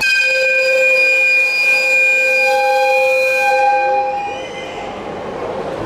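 EF55 1 electric locomotive's whistle blowing one long, multi-tone blast of about four seconds, which cuts off and echoes around the hall.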